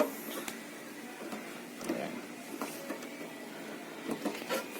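Small clicks and handling knocks of wire connectors being fitted back onto a microwave oven's magnetron terminals, scattered irregularly.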